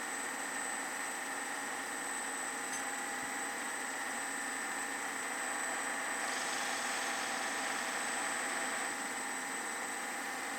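Small metal-working lathe running steadily, with a constant hum and whine. A slightly louder hiss joins from about six seconds in and eases near nine seconds.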